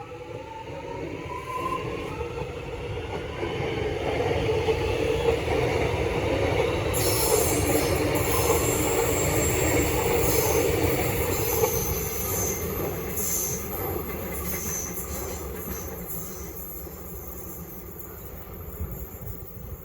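Metro X'Trapolis electric train pulling away: a rising whine in the first second or two, then wheels rumbling and rattling on the rails, growing louder to a peak in the middle and fading as it goes. A high hiss and squeal from the wheels joins about seven seconds in.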